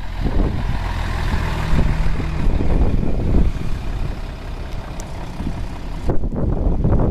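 Diesel bus engines running: a Mercedes-Benz Citaro bus pulls away close by with a loud rush in the first few seconds. A Mercedes-Benz O405GN articulated bus then approaches, and a small car drives past.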